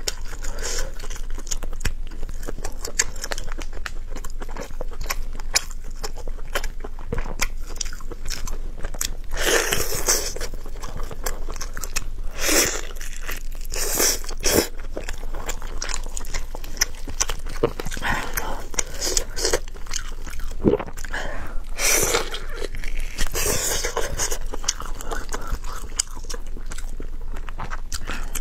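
Close-miked eating sounds: biting and chewing braised pork knuckle stewed soft, with many small mouth clicks and several louder bursts now and then.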